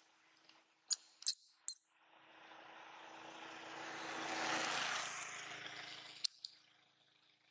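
A vehicle passing on the road, swelling over a few seconds and then cutting off abruptly. Before it come three sharp clicks, and two more follow just after it stops.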